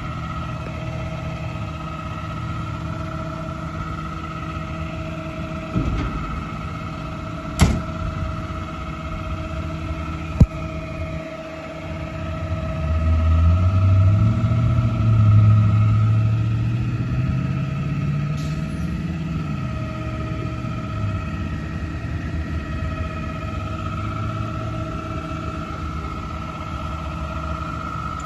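Automated side-loader garbage truck idling with a steady whine, with a few sharp metallic clanks about six to ten seconds in. Around twelve seconds in the engine revs up for several seconds, with its pitch rising then falling, as the hydraulic lifting arm reaches out, then settles back to idle.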